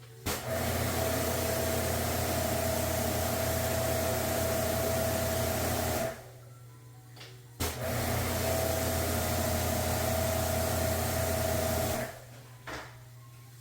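Electric pressure washer running in two spells of about six and four and a half seconds, starting and stopping sharply as the trigger is worked; a steady hum with a mid-pitched whine under the hiss of the spray, used to wash air-conditioner filters.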